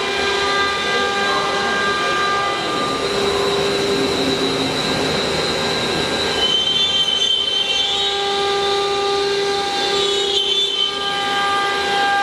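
CNC router spindle whining steadily while the bit cuts wood, with a rougher, noisier cutting sound for a few seconds in the middle.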